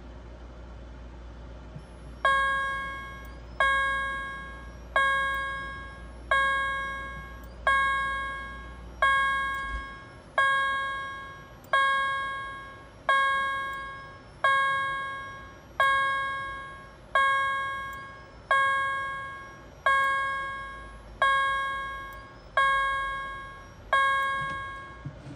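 Wheelock fire alarm speaker strobe sounding its chime signal: one bright chime tone struck over and over, about every 1.4 seconds, each strike ringing and fading before the next. It begins about two seconds in and gives seventeen strikes.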